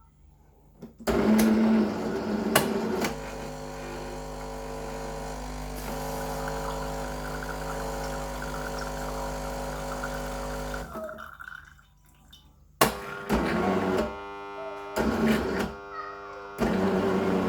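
Jura F50 automatic coffee machine running its rinse cycle: a steady mechanical hum for several seconds, a short pause, then a loud buzzing drone in stops and starts from the brew unit's motor as it drives the unit back to its standard position. The owner cannot explain this drone; he reports the seals as fine.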